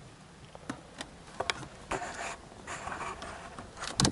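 Plastic interior trim around a car's gear shifter being worked at by hand: light scraping and rubbing with scattered small clicks, and a sharper click near the end.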